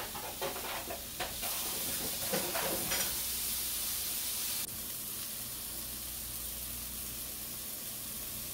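Sliced baby bella mushrooms sizzling steadily in grapeseed oil in a hot frying pan, sautéing toward caramelised. A few faint clicks come in the first three seconds, and the sizzle steps down a little about halfway through.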